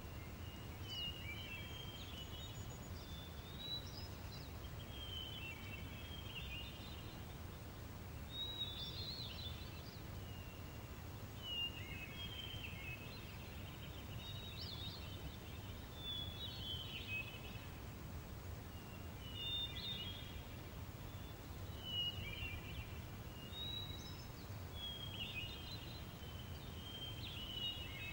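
Daytime outdoor ambience: songbirds chirping in short, quick phrases every second or two over a steady low breeze.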